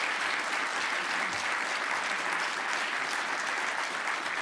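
An audience applauding, a steady dense clatter of many hands clapping.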